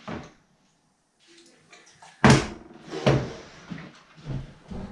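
A partly filled plastic water bottle, flipped onto a table, lands with one hard thump a little over two seconds in, followed by a few lighter knocks as it tips and is handled.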